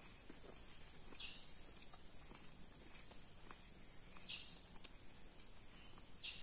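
Tropical forest ambience, faint: a steady high insect drone throughout, with a bird giving a short falling call three times, about a second in, past four seconds and near the end.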